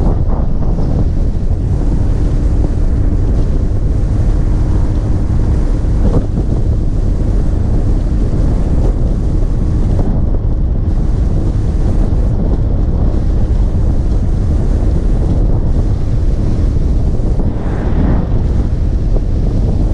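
Loud, steady wind noise buffeting the microphone while riding along an open road at speed, drowning out most other sound.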